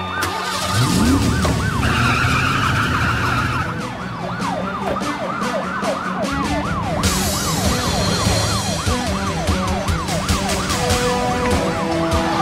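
Police car siren in a fast yelp, its pitch sweeping up and down about three times a second, over the sound of cars racing, with an engine revving up about a second in. Steady music tones come in near the end.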